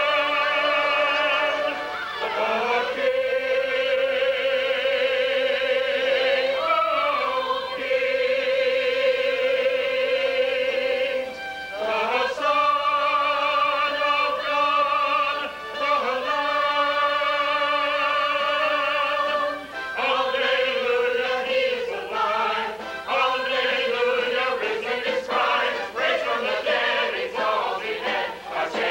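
Large choir singing long held notes with vibrato, moving to a new chord every few seconds; in the last third the notes become shorter and more rhythmic.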